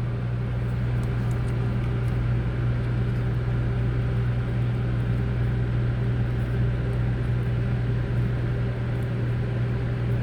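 Steady low mechanical hum of a running motor or fan, unchanging throughout.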